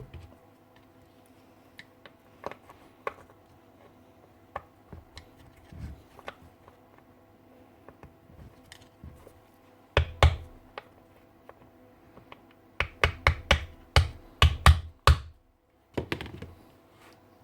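Scattered clicks and taps from tools and parts being handled on a workbench. A couple of louder knocks come about ten seconds in, and a quick run of knocks follows a few seconds later.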